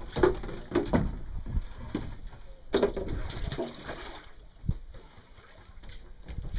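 Water splashing and sloshing as a homemade propeller on a long straight shaft is worked through the water beside a small boat. It comes in irregular surges, with a few knocks of the shaft against the hull.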